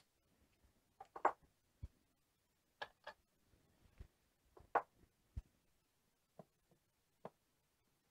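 Casino chips being set down on a craps table's felt and clicking against each other as hard-way bets are placed: a scatter of about ten faint, separate clicks, the loudest about a second in and again near the middle.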